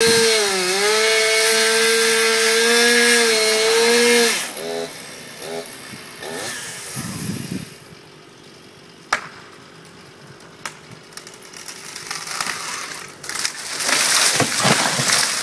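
Chainsaw running at high speed with a steady note, briefly dipping in pitch near the start, then cutting off after about four seconds. Quieter, irregular sounds follow, with a single sharp crack about nine seconds in and louder noisy stretches near the end.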